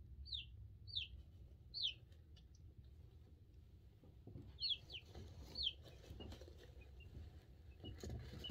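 Two-week-old chicks peeping: short, high chirps that fall in pitch, several in a row with pauses, then fainter peeps. Light rustling of the chicks moving in pine shavings in the second half, and a soft bump right at the end.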